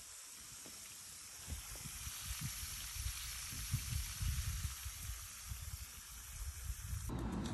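Outdoor ambience: a steady soft hiss with irregular low rumbles of wind on the microphone.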